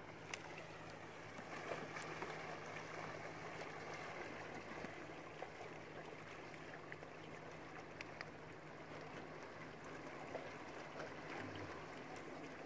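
Water lapping and trickling against the hull of an inflatable canoe moving slowly on calm sea, with scattered faint small clicks and a faint steady low hum underneath.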